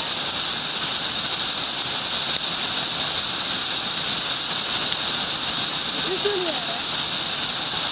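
Waterfall's falling water giving a steady, unbroken rushing noise, with a constant high-pitched whine running over it. A faint voice is heard briefly about six seconds in.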